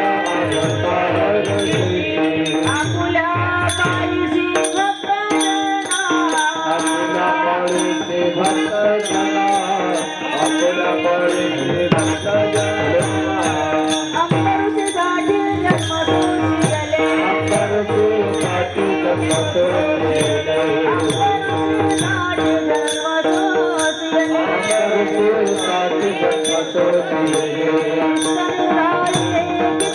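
Marathi devotional kirtan music: singing over a held drone note, with small hand cymbals (taal) clinking a quick, steady beat.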